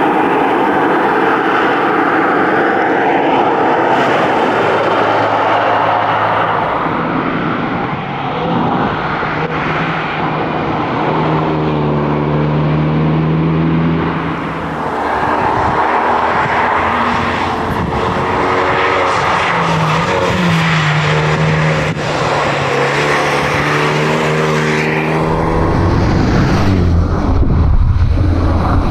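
2012 Renault Megane RS 250's turbocharged 2.0-litre four-cylinder engine driven hard, its note rising and dropping with the revs and gear changes over steady road and wind noise, with a deeper rumble building near the end.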